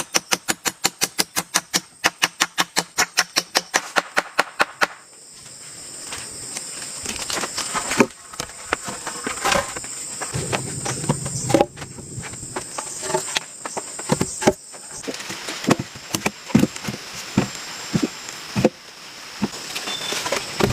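A rapid, even clicking, about four to five clicks a second, for the first five seconds. Then a steady high-pitched drone of jungle insects, with scattered knocks and taps over it.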